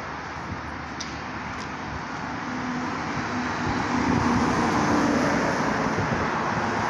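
Road traffic noise, with a car driving past close by that swells to its loudest about four to five seconds in, its engine hum showing, then fades.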